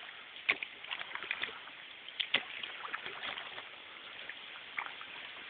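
Quiet canoe paddling on calm water: soft paddle splashes and drips, with a few sharp knocks about half a second in and twice close together a little after two seconds.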